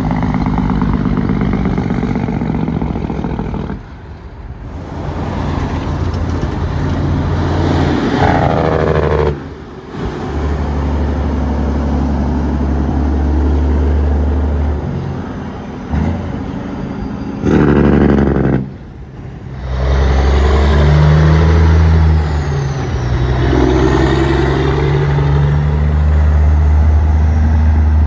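Loud diesel engines of semi trucks, heard in several short clips cut one after another, each a deep rumble whose pitch rises and falls.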